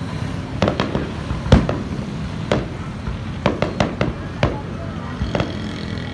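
Aerial fireworks shells bursting in a string of sharp bangs, the loudest about a second and a half in and a quick cluster of several bangs near the middle, over a steady low rumble of crowd and street noise.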